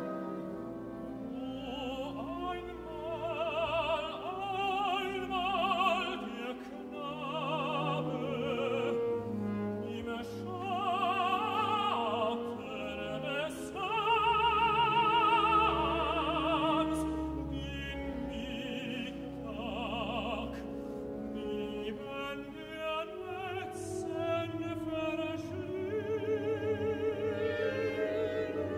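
Operatic tenor singing long phrases with a wide vibrato over a large symphony orchestra in a slow, late-Romantic-sounding contemporary classical setting. The voice drops out a few seconds before the end and sustained strings carry on.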